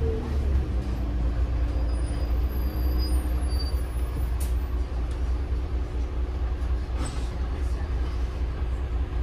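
Heuliez GX 137 city bus running, its Iveco Tector 7 diesel engine giving a steady low rumble, with two brief sharp clicks about halfway through and near the end.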